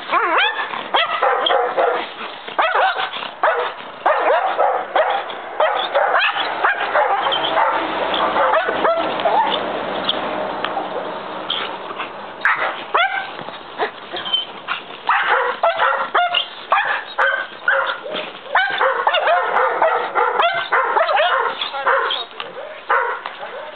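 A 14-month-old dog barking and yelping rapidly and excitedly, with a stretch of high whining about a third of the way through.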